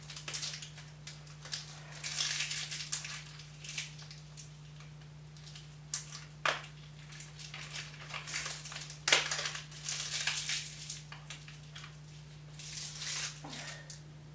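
Packaging crinkling and rustling as it is handled, in irregular bursts, with two sharp snaps about six and a half and nine seconds in.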